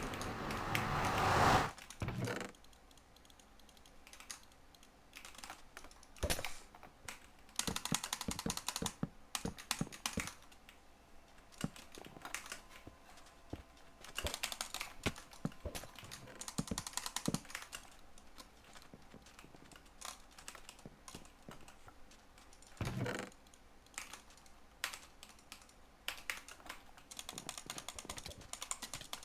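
Close-up ASMR click sounds: a rushing noise that builds and stops about two seconds in, then bursts of rapid small clicks and taps with quiet gaps between, much like typing on a keyboard.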